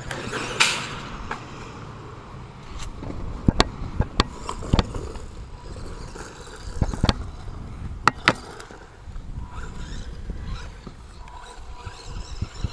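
A small DEERC 1/16-scale four-wheel-drive remote-control truck driving over rough ground, its tyres and chassis rolling and scraping. Sharp knocks come about half a second in and several more times as it hits the ground and bumps over obstacles.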